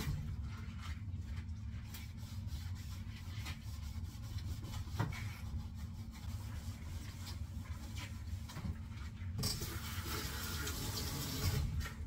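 Dishwashing with rubber-gloved hands: soft rubbing and light clicks of dishes over a low steady hum, with a louder hissing stretch starting about nine seconds in and lasting a couple of seconds.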